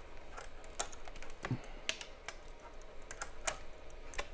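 Irregular light metallic clicks and ticks as a wrench grips and twists a bass clarinet's metal receiver, whose epoxy joint has been softened by heating, against the plastic body.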